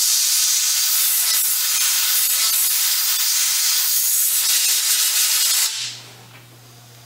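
Compressed-air blow gun hissing in one steady blast of about six seconds through an open rifle action, blowing out water left from cleaning; the hiss starts abruptly and dies away near the end.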